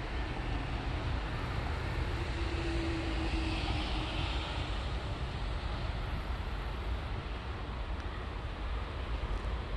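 Steady low background rumble, with a faint brief hum a few seconds in.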